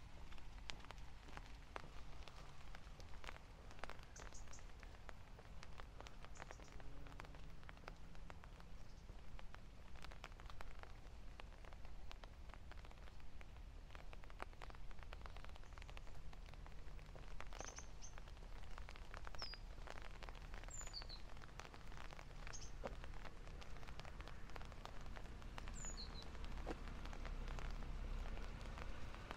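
Light rain pattering, with many irregular small ticks of drops. Several short, high bird chirps come and go, most of them in the second half.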